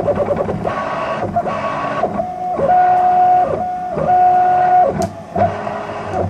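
3D printer stepper motors whining through a series of moves: steady tones, each about half a second to a second long, changing pitch from one move to the next, with a short glide as each move starts and stops.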